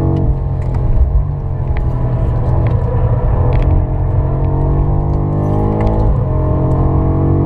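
BMW M5 F90's 4.4-litre twin-turbo V8 heard from inside the cabin at track speed. The revs drop near the start as the car lifts and changes down. The engine then pulls through the gear, rising steadily in pitch, drops sharply at an upshift about six seconds in, and starts climbing again.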